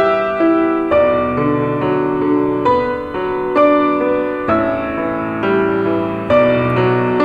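Grand piano playing a slow, gentle passage, a new note or chord struck about once a second and left to ring.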